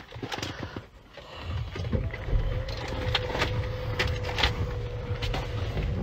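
Car cabin noise: a low engine and road rumble that comes up about a second and a half in and holds steady, with a steady hum over it and a few short clicks.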